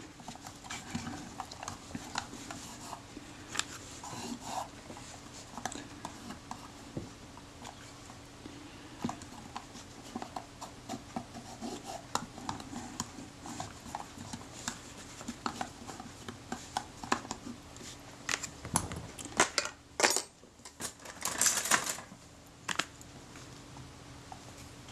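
Small handling sounds of fingers pressing and rubbing a leather camera covering down onto a metal camera body: scattered soft clicks and rubs, with a few louder scrapes and knocks near the end.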